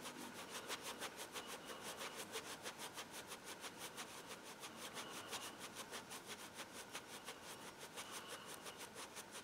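Paintbrush bristles scrubbing back and forth over textured watercolour paper in quick, regular strokes, faint and even.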